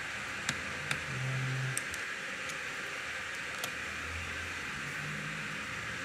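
A few light, sharp clicks of a small screwdriver against the metal heatsink screws on a laptop's motherboard, over a steady background hiss.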